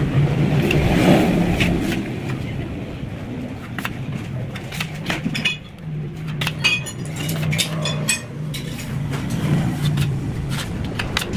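Light metallic clinking and tapping, thickest in the middle, over a steady low drone.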